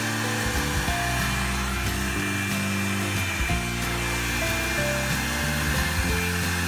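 Revlon One-Step hair dryer brush running steadily: a constant rush of blown air with a thin high whine, under background music of held notes.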